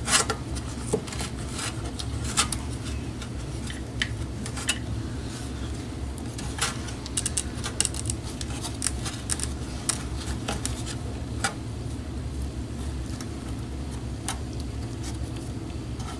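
Scattered light clicks and taps from hands working wires and a grommet through a hole in a box, over a steady low hum.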